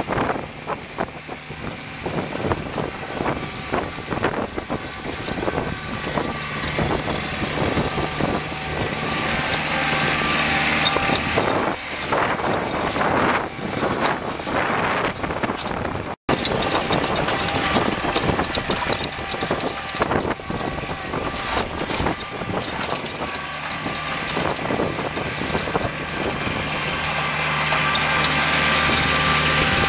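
Kubota 2710HSD compact tractor's four-cylinder diesel engine running steadily as the tractor drives along, with a momentary dropout about sixteen seconds in.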